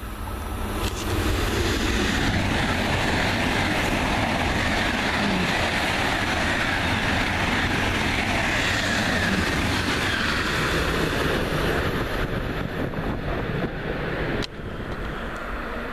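ICE high-speed train passing through a station at speed: a loud, steady rush of wheels and air that builds over the first two seconds, holds, and then cuts off sharply near the end.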